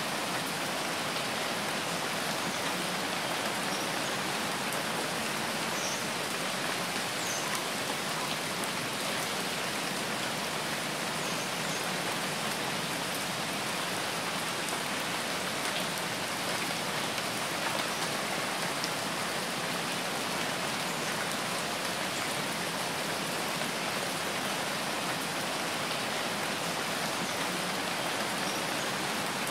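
Steady rain falling, an even hiss of drops that holds at the same level throughout.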